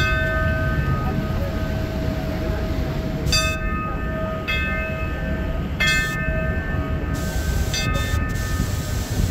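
A metal temple bell struck again and again, about six times at uneven intervals of one to two seconds, each stroke ringing out and fading, over a steady low rumble.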